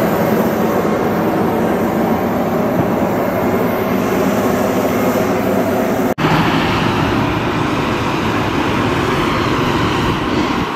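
Steady drone of aircraft and ground equipment on an airport apron, mixed with wind rumble on the microphone. There is a brief dropout about six seconds in, after which the noise carries on with more hiss.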